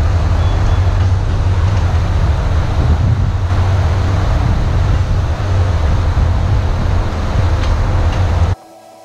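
Diesel engine of a skid steer loader running steadily, a loud low drone that cuts off abruptly near the end.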